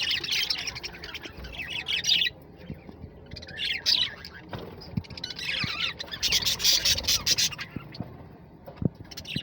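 A colony of caged small parrots chattering and squawking in overlapping bursts, with short lulls between them and a few faint knocks.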